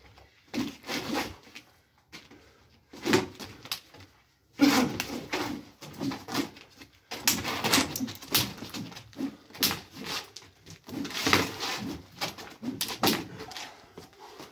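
Fighting sticks clacking against each other and against protective gear during full-contact stick sparring, in irregular flurries of quick strikes that come thickest from about four and a half seconds in.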